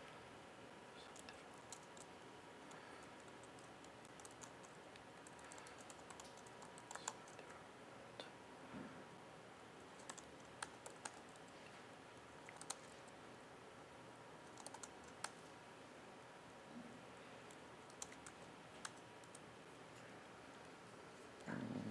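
Faint, irregular keystrokes on a laptop keyboard as terminal commands are typed, over a low steady room background. A short muffled noise comes just before the end.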